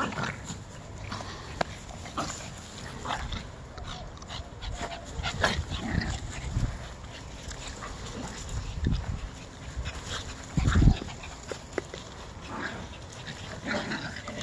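Several small puppies chasing and play-fighting, with short, scattered puppy sounds and a few low bumps, the loudest about eleven seconds in.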